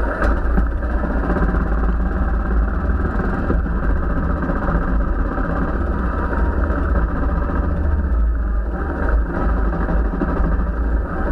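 Royal Enfield Himalayan's single-cylinder engine running steadily while the motorcycle is ridden, heard from a camera mounted on the bike, with a heavy low rumble.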